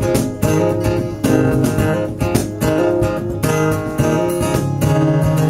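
Acoustic guitar strummed in steady strokes over held low notes: the instrumental intro of a live country song.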